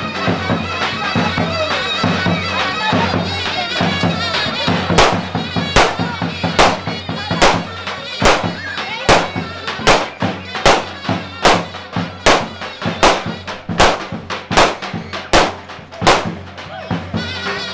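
Turkish folk dance music: a shrill reed-pipe melody over heavy drum beats. The strong drum strokes come in about five seconds in, at roughly one every 0.8 seconds.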